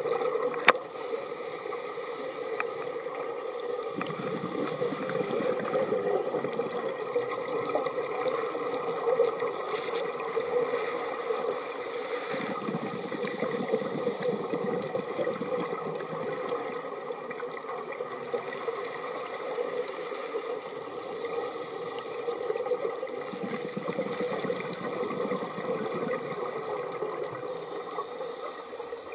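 Underwater ambience recorded on a camera: a steady watery rushing, with a low rumble that swells and fades for several seconds at a time, and one sharp click about a second in.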